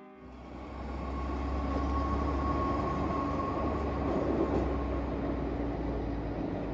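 Bombardier AGC bimode railcar (B 81500 series) pulling away from a station on diesel power, with a steady low engine rumble and a held whine. The higher whine fades out about five seconds in.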